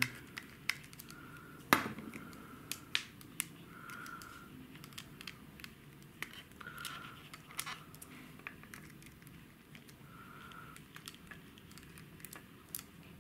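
Small irregular clicks and scratches of a precision screwdriver turning a tiny screw out of a camera-glasses frame, one click louder than the rest a couple of seconds in, with a faint short squeak every few seconds.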